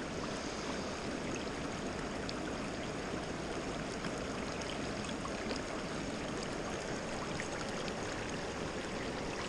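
Shallow rocky stream flowing steadily over and around boulders: an even rush of running water.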